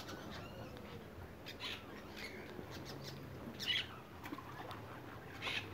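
A tilapia thrown by hand back into a small concrete pond, with one short splash about two-thirds of the way in, amid faint rustling among wet leaves and a few faint bird chirps.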